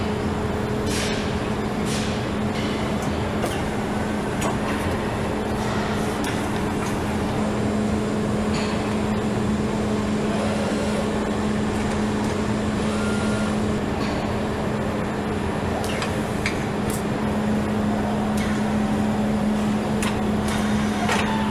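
Assembly-line machinery running: a steady machine hum with scattered clicks and knocks from automated stations.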